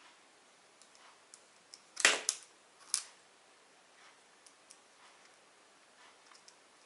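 Small screwdriver clicking against the adjustment screw of a trimmer potentiometer on a DC step-down converter module while the output voltage is turned down. A cluster of sharp clicks comes about two seconds in and another a second later, with faint ticks between.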